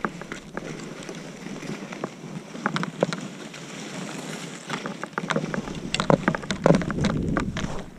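Skis sliding and scraping over packed, cut-up snow, with many short clicks and chatters, under wind rushing on the microphone; louder and rougher about five seconds in.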